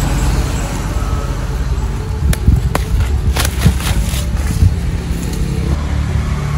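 A loud low rumble throughout, with a few sharp snaps between about two and four seconds in as spinach shoots are pinched off by hand.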